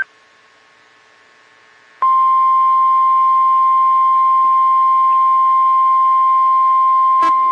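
NOAA Weather Radio warning alarm tone: a single steady, pure beep just above 1 kHz. It comes on suddenly about two seconds in after a short quiet gap and signals an incoming weather warning. A brief click sounds near the end.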